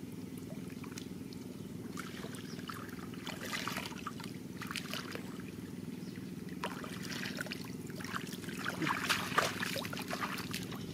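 Shallow muddy water splashing and trickling as a woven bamboo basket and hands scoop and sift through it. The splashes come in scattered bouts, busiest and loudest near the end, over a steady low hum.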